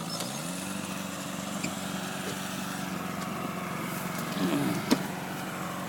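50 hp Mercury outboard motor idling steadily; its pitch dips briefly just after the start, then settles back to an even idle.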